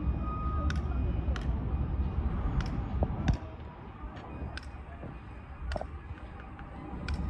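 Sharp taps and clicks of hard material from paving work, at uneven intervals of roughly one a second, over a steady low rumble that drops a little about three and a half seconds in.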